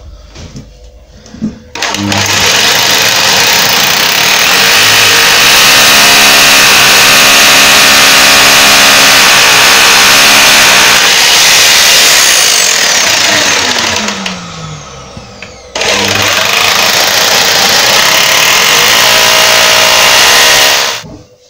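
Hammer drill with a 6mm masonry bit boring into a plastered brick wall, with a vacuum extractor hose held at the hole. Two runs: a long one of about twelve seconds, with the motor winding down at its end, and a shorter second one of about five seconds near the end.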